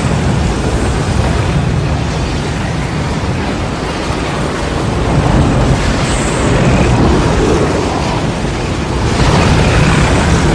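Tornado sound effect: a loud, continuous rush of wind over a deep rumble, swelling again about nine seconds in.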